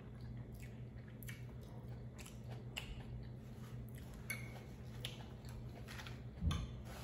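Close-miked chewing of a chimichanga, with wet mouth clicks and smacks throughout. One low thump about six and a half seconds in is the loudest sound.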